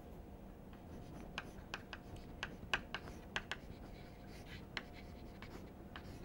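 Chalk writing on a blackboard: a string of short taps and scratches, thickest in the middle, over a faint steady hum.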